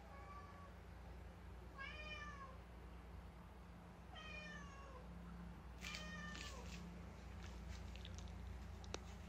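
Domestic cat meowing four times, each meow rising and then falling in pitch. A few light clicks and taps follow near the end.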